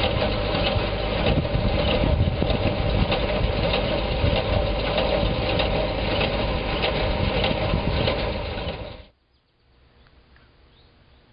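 An engine running steadily, stopping abruptly about nine seconds in; faint bird chirps follow.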